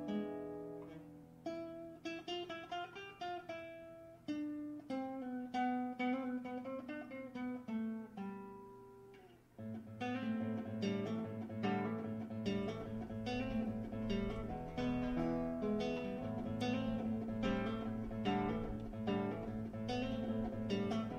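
Background music on acoustic guitar. Picked single notes at first, then, about ten seconds in, a fuller and louder strummed part with low bass notes.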